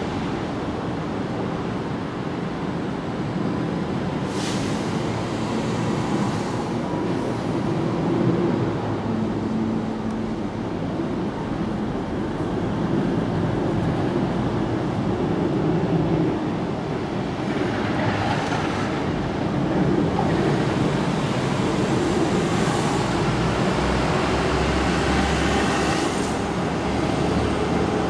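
Steady rumble of vehicle traffic, with a deeper low rumble building near the end.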